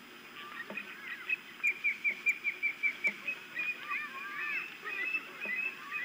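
Ospreys calling: a rapid run of short, sharp whistled chirps, about six a second, then overlapping arched calls at several pitches from more than one bird about halfway through.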